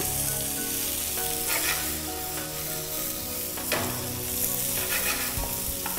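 Diced red peppers, potato and garlic sizzling steadily as they sauté in a frying pan, stirred with a wooden spoon.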